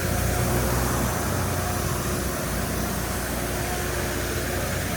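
An engine running steadily: a low, even hum and rumble with a faint constant tone, no change in speed.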